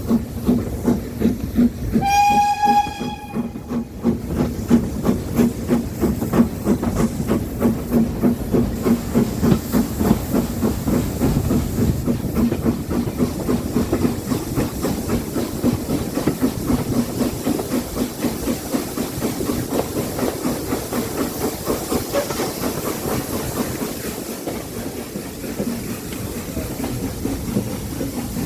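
Steam locomotive sounding one short whistle about two seconds in, then working along with a steady rhythmic beat and hiss that grows fainter toward the end.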